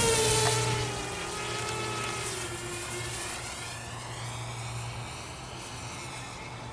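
Walkera F210 racing quadcopter's motors and propellers whining in flight, loudest at the start and fading as it flies away. The whine drifts down in pitch and then rises again with the throttle.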